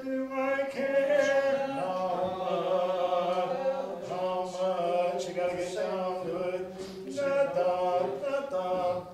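Voices singing a cappella, holding sustained chords that change every couple of seconds.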